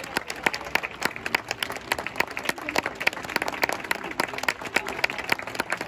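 Football stadium crowd applauding, many hands clapping, with voices mixed in.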